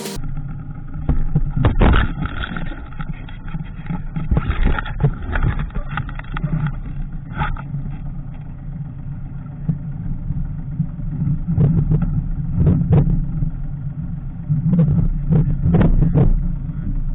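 A boat's engine running with a steady low rumble, with sharp knocks and bumps scattered through it.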